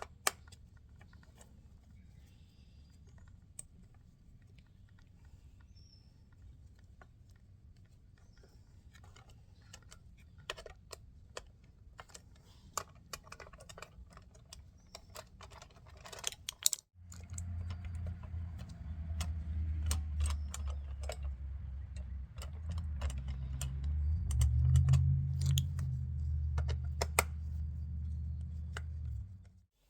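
Light metallic clicks and taps of small parts and hand tools as a steering-wheel horn bracket is taken off one wheel and fitted to another. From just past halfway a low steady hum runs under the clicks, swelling for a few seconds near the end.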